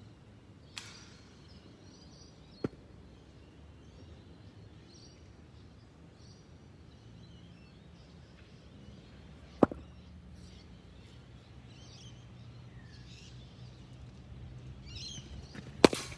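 Cricket bat striking a hard leather ball with a sharp crack near the end, the loudest sound. A smaller sharp knock comes about ten seconds in, with birds chirping in the background.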